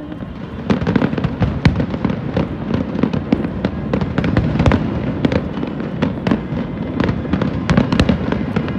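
Fireworks going off: rapid, dense crackling and popping of many small bursts, beginning about a second in and continuing without a break.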